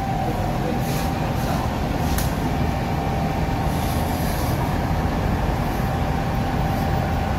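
Conveyor pizza oven running: a steady low rumble with a constant hum tone from its blower. A couple of faint metallic clicks come early as the pan is set onto the wire conveyor belt.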